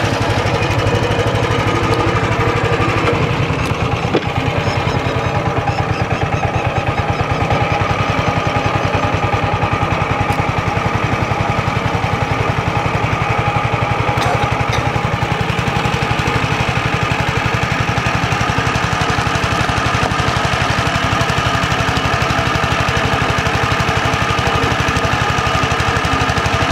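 Boat engine running steadily under way, with a fast, even firing pulse, heard from on board.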